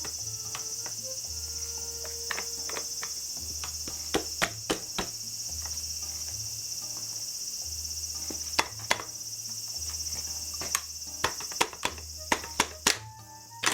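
Steady high-pitched chirring of insects, with scattered sharp clicks and taps, several coming in quick clusters.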